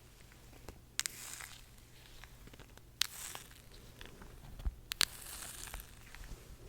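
Close-miked ASMR sticky sound: a tacky surface pulled apart in three crackling, tearing peels about two seconds apart, each starting with a sharp snap.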